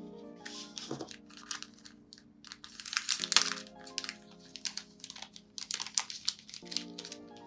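Clear plastic sticker packet crinkling and crackling as hands handle it, the crackles thickest about three seconds in. Soft lo-fi music plays underneath, a new chord coming in every three seconds or so.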